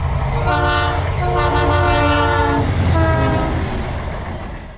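Diesel locomotive horn sounding a chord in long blasts, the last one starting about three seconds in, over a low engine rumble; it all fades out near the end.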